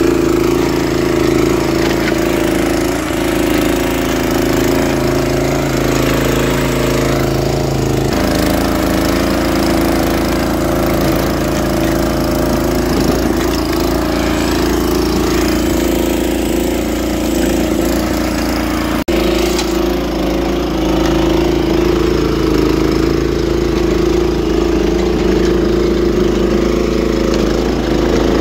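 Barreto hydraulic-drive rotavator's petrol engine running steadily under load as its tines churn through stony, rubble-filled topsoil. The engine note shifts slightly about eight seconds in.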